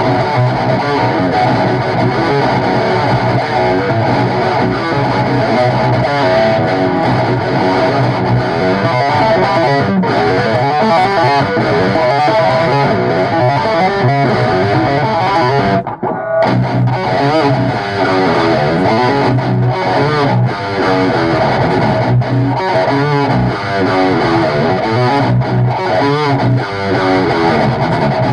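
Distorted electric guitar music played by a band, loud and continuous, with a brief break about sixteen seconds in.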